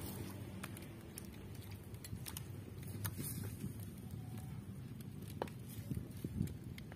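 Wood fire crackling under an aluminium pan, with scattered sharp clicks over a low steady rumble, as a metal ladle scoops and pours coconut milk over fish heads in the pan.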